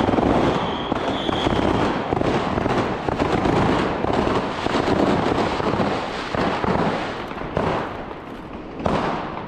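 New Year's fireworks and firecrackers going off in a dense, continuous crackle of bangs, with high whistles in the first second or so. The crackle thins in the second half, with one sharp bang near the end.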